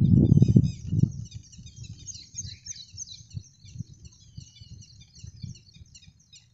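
Many small birds chirping together in a dense, overlapping chatter of short high chirps. A loud low rumble fills roughly the first second, followed by faint scattered low knocks.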